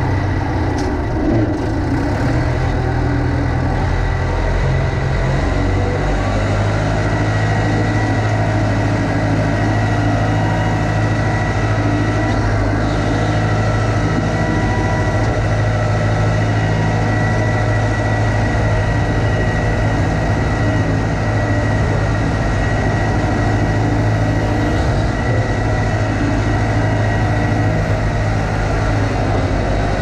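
The diesel engine of a Massey Ferguson MF50E backhoe running steadily as the machine works the driveway, with a steady high whine alongside the engine note.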